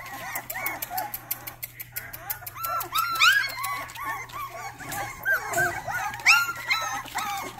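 A litter of three-and-a-half-week-old Rottweiler puppies yipping and whining, several at once, in short high squeaky cries that rise and fall. The loudest yelps come about three seconds in and again about six seconds in.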